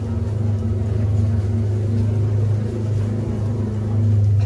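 A steady low humming rumble, constant throughout.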